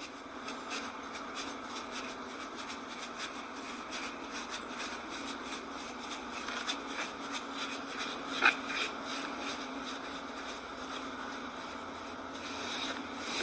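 A brush working watery rust converter onto a metal fan grill: a fast, uneven series of soft scrubbing strokes, with one sharper tap about two-thirds through.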